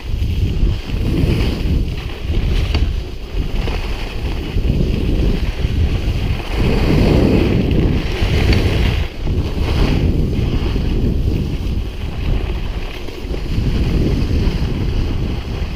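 Wind buffeting the microphone of a ski bike speeding downhill, surging and easing, over the hiss and scrape of its skis on groomed snow.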